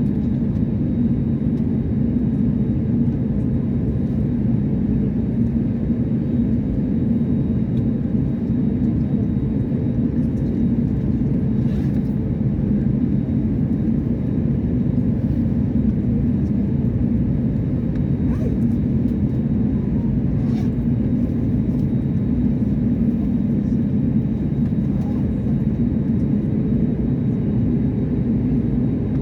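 Steady low rumble of a jet airliner's engines and airflow heard inside the passenger cabin, even in level throughout, with a few faint clicks.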